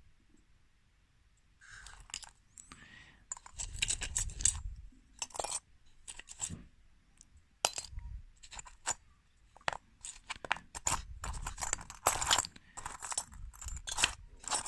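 Old coins and small silver and gold finds clinking and rattling together as they are sorted through by hand. The clinks are many and quick, come in clusters and begin about two seconds in.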